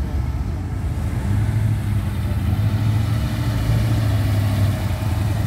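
Car engine idling, a steady low drone that grows stronger about a second in and holds.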